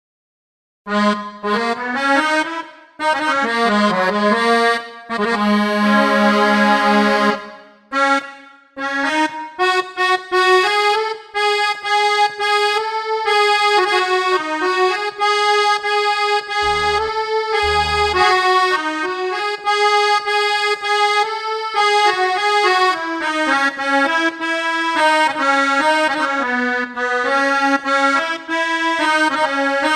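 An accordion tone played from a MIDI keyboard: a melody of held notes over chords starts about a second in and carries on. Two short low notes sound about halfway through.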